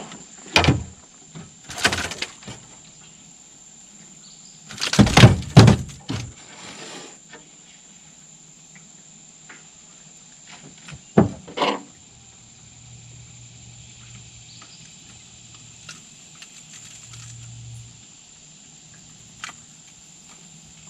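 Occasional knocks and clunks against an aluminum jon boat's deck as a caught bass is handled, the loudest cluster about five seconds in. A steady, high-pitched insect drone runs underneath.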